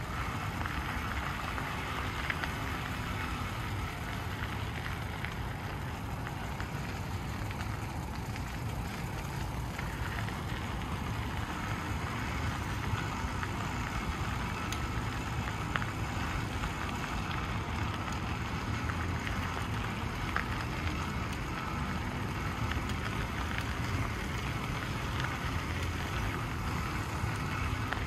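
A noisy bicycle riding along a gravel path: a steady crunch and hiss of the tyres on gravel with small clicks from the bike, and wind rumbling on the microphone.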